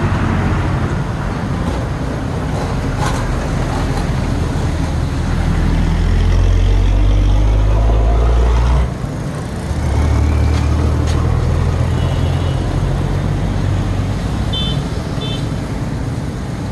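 Road traffic close by, led by a large vehicle's engine running with a low hum. It grows loudest in the middle, drops off suddenly about nine seconds in, then picks up again.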